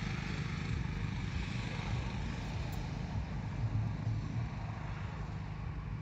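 Diesel engine of a Bull SD76 backhoe loader idling steadily, a constant low rumble.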